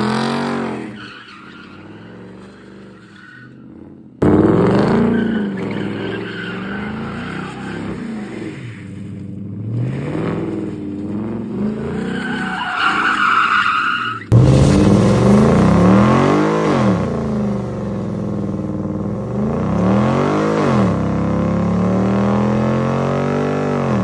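Ford Mustang GT's 5.0 V8 revving hard up and down during a burnout and donuts, with the tires squealing. The sound changes abruptly twice, about four and fourteen seconds in, where separate clips are joined.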